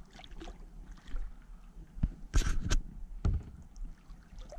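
Water lapping and dripping against the hull of a Bonafide SS127 kayak, with a few short splashes or knocks about two to three seconds in.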